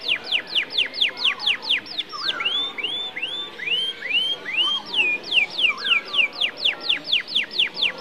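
Canary singing: fast trills of repeated downward-sweeping whistled notes, about five a second, broken by a slower phrase of arched, rising notes near the middle before the fast trill returns.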